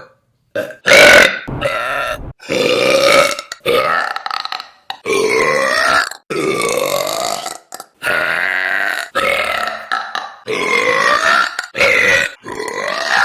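A woman's loud burps, about a dozen in a row, each half a second to a second and a half long and cut off sharply into the next. The loudest comes about a second in.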